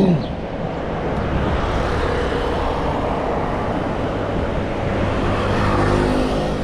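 Steady road traffic on a busy highway, motor vehicles passing close by; an engine's hum swells near the end as a vehicle goes past.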